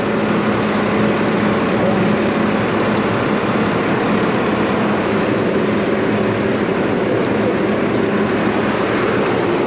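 Mack refuse truck's engine clutch fan engaged: a loud, steady rush of air over the idling engine's low hum, likened to a jet engine taking off.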